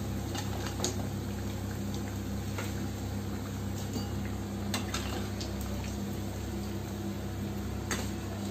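Egg pakoras deep-frying in hot oil, a steady sizzle and bubbling over a low hum, with a few light clicks of a slotted spoon against the pan as they are lifted out.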